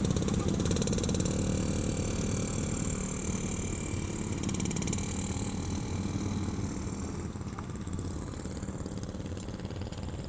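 Motorcycle engine running close by, louder in the first half and gradually fading after that.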